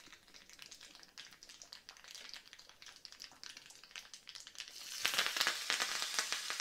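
Mustard and cumin seeds crackling faintly in hot oil in a small tempering pan, then a louder sizzle starting about five seconds in as curry leaves go into the oil.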